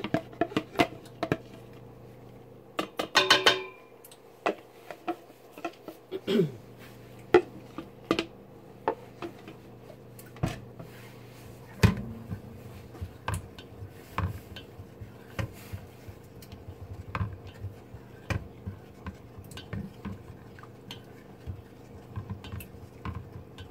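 A stick blender running in a stainless steel pot of hot oils and lye solution, a faint steady hum under many short knocks and clicks as its head bumps the pot, with a brief ringing clink about three seconds in. It is mixing the soap batter toward trace.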